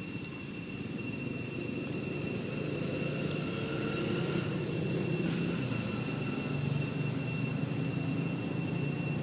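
Low engine rumble of a passing vehicle, growing louder over the first few seconds, with steady high-pitched whines above it.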